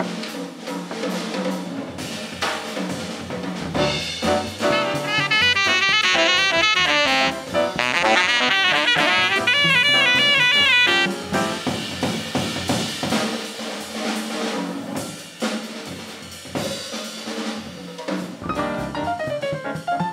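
Live small-group jazz: tenor saxophone playing fast, loud runs over piano, upright bass and drum kit. About eleven seconds in the saxophone drops out and the drums, with snare and cymbals, lead the rest.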